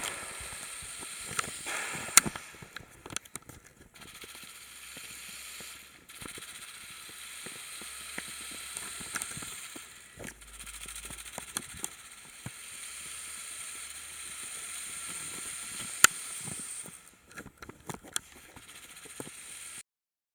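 Two large Lego Technic electric motors and their plastic gear trains whining as a Lego RC car drives, stopping and starting several times, with clicks and sharp ticks from the gears and wheels. The motors are labouring, which the builder puts down to the car being too heavy for them.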